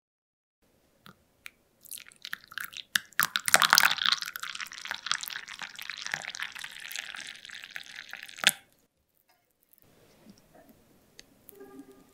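Americano poured into a glass coffee cup: a splashing, trickling pour that starts about two seconds in, is loudest in its first couple of seconds, and stops abruptly about six seconds later.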